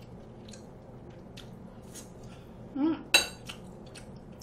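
Metal utensils clinking against a stainless steel bowl: a few faint clicks, then one sharp, ringing clink about three seconds in.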